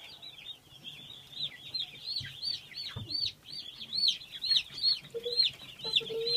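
A large brood of day-old chicks peeping all together: a dense chorus of short, high calls, each rising and then falling, overlapping continuously.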